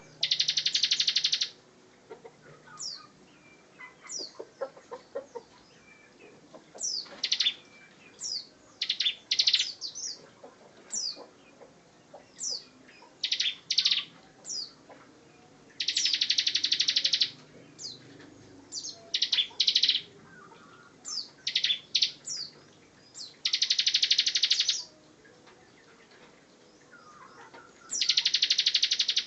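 Bar-winged prinia (ciblek) singing: four long, fast buzzing trills of about a second and a half each — the 'ngebren' rattle — with short high chirps and sweeping notes between them.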